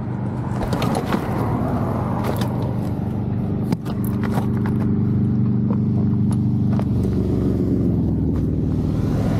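Motorcycle engine idling steadily, with scattered clicks and scuffs as the rider moves about on the gravel beside it and climbs back on.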